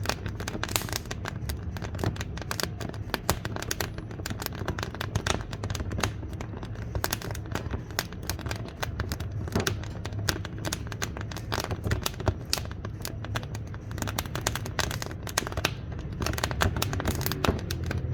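Wood fire burning in a wood-burning cookstove, crackling steadily with many sharp, irregular pops over a low rumble.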